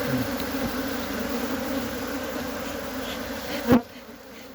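Steady buzzing hum of a honeybee colony swarming around its opened hive. Near the end a single sharp knock, after which the buzz is much quieter.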